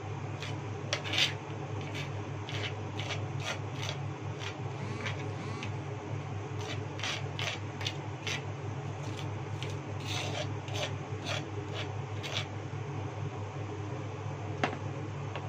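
Metal spoon scraping thick, sticky seasoning paste off a dish, in a string of short, irregular scrapes, with a knock about a second in and another near the end. A steady low hum runs underneath.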